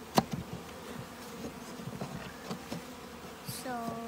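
Honeybees buzzing around an open top-bar hive, with a sharp wooden knock just after the start as a bar or spacer is pressed into place, followed by a few lighter taps. Near the end one bee flies close past, its buzz holding steady and then rising in pitch.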